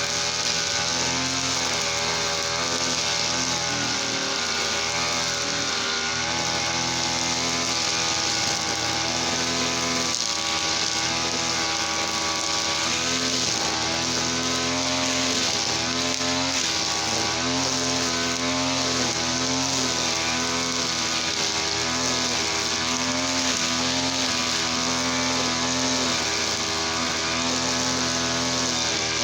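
Two-stroke TL33 brush cutter engine running on mixed fuel, its speed shifting up and down repeatedly as the throttle is worked.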